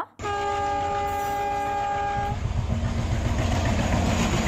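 Diesel locomotive horn sounding one steady blast of about two seconds, followed by the low rumble and rattle of the train passing on the track.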